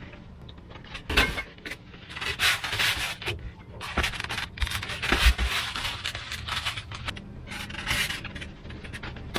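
Depron foam sheets rubbing and scraping as they are handled and pressed down on the bench, in irregular scratchy bursts. A few dull thumps come in between, as cast iron weight plates are set on the foam.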